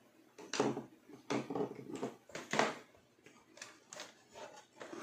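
A string of knocks and rattles from a toaster's plastic end housing and sheet-metal body being handled and shifted on a bench after reassembly.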